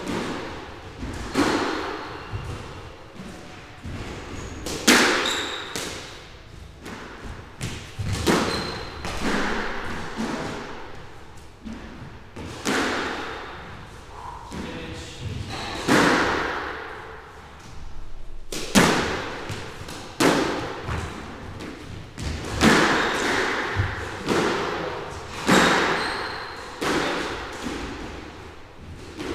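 Squash ball struck by rackets and smacking off the walls of a squash court during a rally, sharp hits every second or two, each echoing in the enclosed court.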